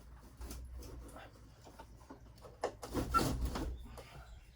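Heavy old air conditioner being shifted and slid in its wall opening: scattered knocks and clunks, then a louder scraping rumble about three seconds in.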